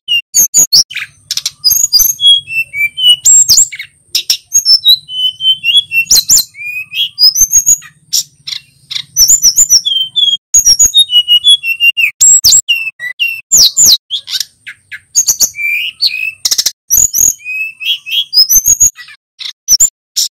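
Male sikatan gunung flycatcher singing a fast, loud, varied song: rapid whistled notes that slide up and down, packed with sharp ticking notes, with only brief gaps.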